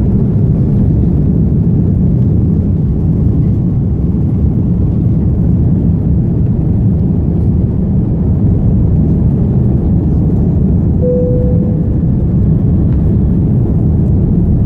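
Asiana Airlines airliner during its takeoff climb: a loud, steady, deep engine and airflow noise. A single brief tone sounds about two-thirds of the way through.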